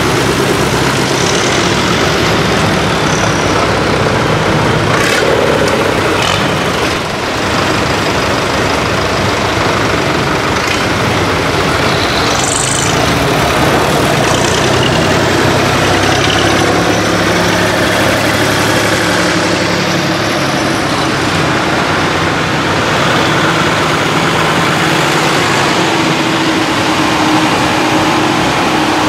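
Diesel engines of a procession of farm tractors driving slowly past close by, vintage Fiats and a Lamborghini, then a John Deere and a Case IH Quadtrac, several engines running steadily at once.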